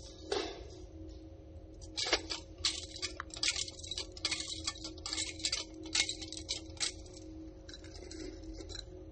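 Metal chains of a swung censer (thurible) clinking in a series of short, often paired strikes, as the Gospel book is incensed before the reading. A faint steady hum lies underneath.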